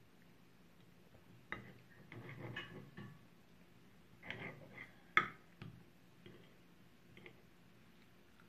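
Knife and fork clinking and scraping against a ceramic plate while cutting a ribeye steak: scattered short clicks and scrapes, the sharpest about five seconds in.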